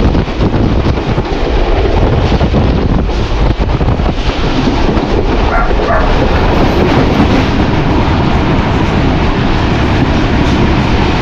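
Hitachi PHA-20 diesel locomotive running, a loud, steady, dense rumble of engine and train, with wind buffeting the microphone.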